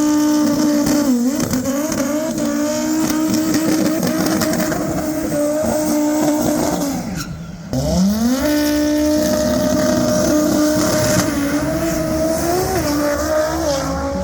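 Highly tuned drag-racing car engine revving hard and holding high revs. Its pitch falls away about seven seconds in, then climbs again and holds with small wavers.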